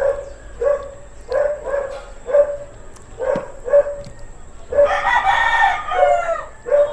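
A dog barking over and over in short barks, about one to two a second. A rooster crows once, about five seconds in.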